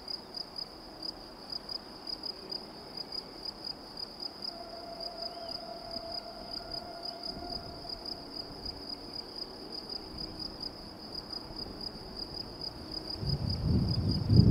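Insects in the grass chirping in a fast, steady, high-pitched pulsing trill. A loud, uneven low rumble swells up near the end.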